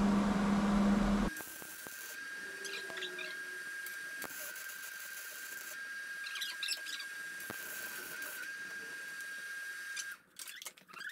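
A small rotary cutting tool runs with a steady high whine, with brief squeals as the wheel bites, cutting slits into the end of an exhaust pipe. A louder steady hum fills the first second, and a run of sharp knocks and clicks comes near the end.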